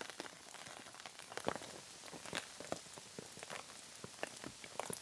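Steady rain falling, with a constant hiss and many irregular individual drops ticking and pattering.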